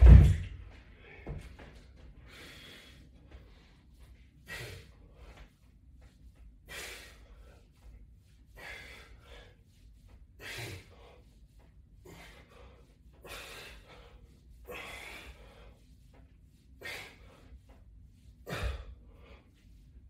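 A man breathing hard in short, forceful breaths, roughly every two seconds, from the effort of a resistance band exercise. A loud thud comes right at the start and a smaller one near the end.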